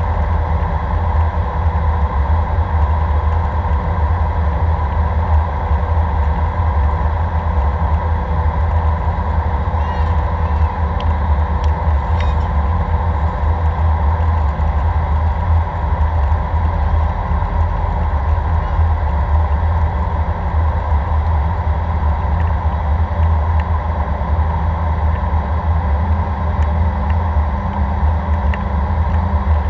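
Steady cabin drone of an Airbus A319 in flight: engine and airflow noise heard through the window seat, deep and even, with a few faint ticks about ten seconds in.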